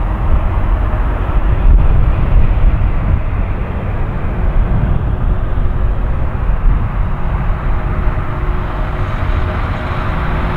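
Boeing 747-400 jet engines running as the jumbo rolls along the runway after landing: a loud, steady, heavy rumble with a faint hum.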